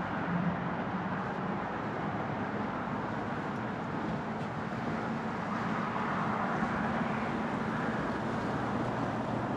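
Steady hum of car traffic crossing a highway bridge, with no breaks.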